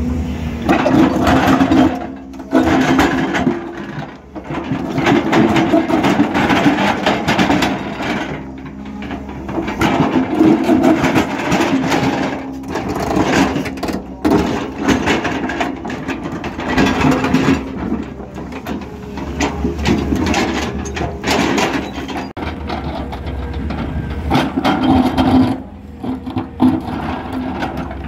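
Tracked excavator's diesel engine running under load while its toothed bucket scrapes and digs into rocky earth, with stones grinding and clattering. The sound swells and eases every few seconds as the bucket bites and pulls.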